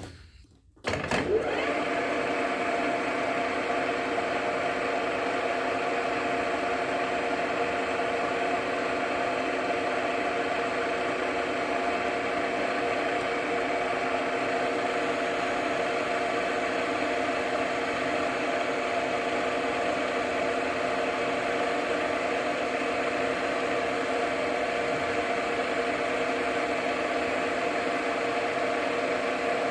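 Lathe starting up about a second in, its spindle quickly coming up to speed, then running steadily with a constant hum and several steady tones while it takes a light turning cut on the stud.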